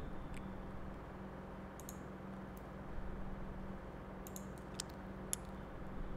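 Sparse light clicks of a computer mouse and keyboard, scattered a second or so apart, over a faint steady low hum.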